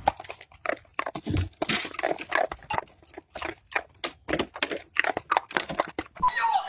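A beagle nosing and snapping at the underside of a picnic table, making a fast, irregular run of short sniffing noises and clicks.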